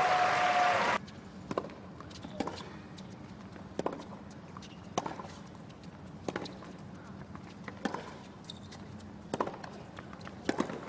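A tennis rally: the ball is struck back and forth by the players' rackets, about eight sharp pops roughly one every 1.2 to 1.5 seconds, with faint court and crowd noise between them. A louder stretch of noise cuts off abruptly about a second in.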